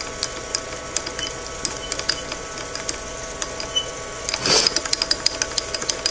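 Light, irregular mechanical clicking and ticking as a brake rotor is turned on a rotary table under a dial test indicator to check its runout, over a steady machine hum. A brief rushing noise comes about four and a half seconds in, and the clicks come faster after it.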